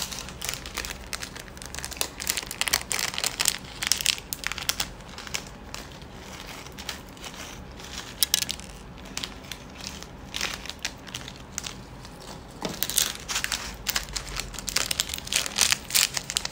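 Small clear plastic seasoning sachets crinkling in irregular bursts of sharp crackles as they are handled, squeezed and shaken to empty out chili-flake topping.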